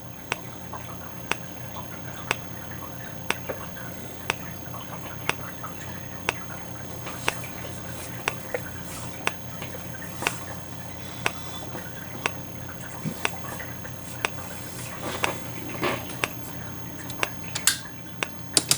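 EST Integrity EST2028AT remote strobe flashing, with a sharp tick about once a second as each flash fires, over a faint steady high-pitched whine from its charging capacitor. A few extra irregular clicks come near the end.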